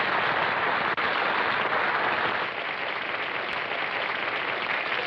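Audience applauding, a dense, steady clapping that eases off a little about halfway through, with a dull top end typical of an old film soundtrack.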